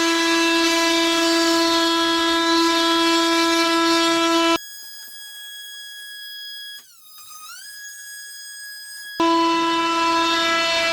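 A single long, steady horn-like note held at one pitch. In the middle it switches for a few seconds to a quieter, higher tone that briefly slides down and back up, then the loud held note comes back.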